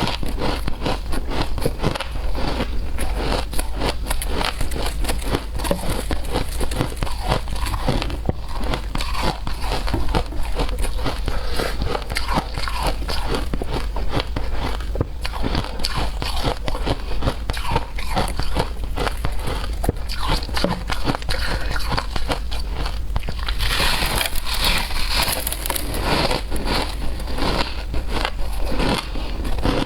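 Shaved ice being chewed close to the microphone: a continuous run of rapid, crisp crunches, growing harsher and brighter for a couple of seconds near the end.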